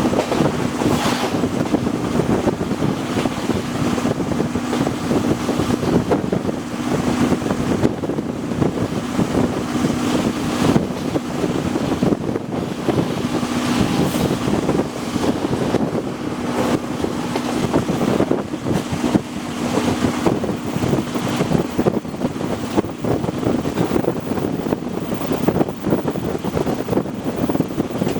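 Running noise inside a moving locomotive-hauled passenger coach: wheels on the rails with irregular knocks, rushing wind, and a steady hum that comes and goes.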